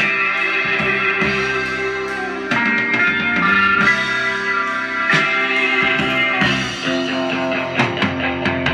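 Recorded music from an iPod playing through a Wurlitzer 200 electric piano's amplifier and its built-in oval speakers. With this external source the amplifier plays without hum, which the owner takes to mean the hum comes from the piano's harp or its RCA cable.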